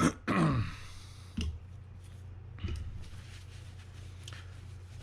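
A sharp click, then a short falling wordless voice sound like a sigh or 'hmm', then a few faint light taps of small reel parts being handled, over a steady low hum.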